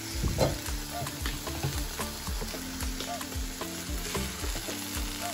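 Chopped amaranth greens sizzling in a pot of hot oil and a little water while a wooden spatula stirs them. Afrobeat background music with a steady beat plays underneath.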